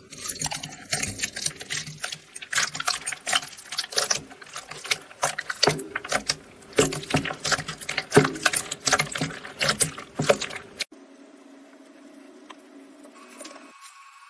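Dense, rapid crackling and crunching of a brittle material being cut or crushed by hand. It stops abruptly about eleven seconds in, leaving only a faint steady hum.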